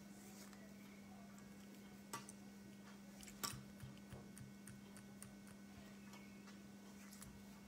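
Near silence: a steady low hum with a few faint scattered clicks and taps, the clearest about three and a half seconds in.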